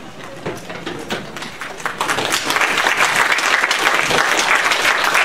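Lecture-hall audience applauding: scattered claps at first, swelling to full, steady applause about two seconds in.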